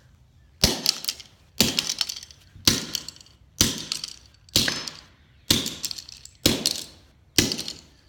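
Claw hammer striking a blue Hot Wheels toy car on a concrete floor, eight sharp blows about one a second, each with a short metallic ring.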